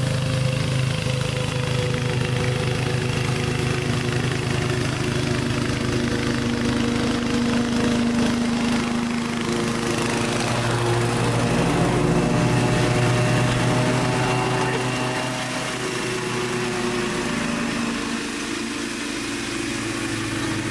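Kohler Command Pro CV224 single-cylinder engine on a walk-behind mower running steadily under load while mulching tall damp grass, without bogging down.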